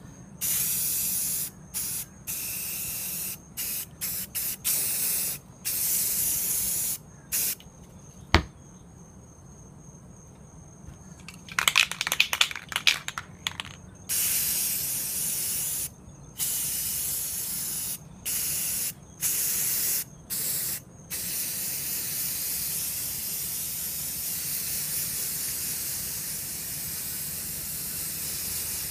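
Aerosol spray paint hissing out of the can in many short bursts of about a second each, stopping and starting, then spraying steadily over the last eight seconds. A single sharp click about eight seconds in and a brief rattle around twelve seconds in.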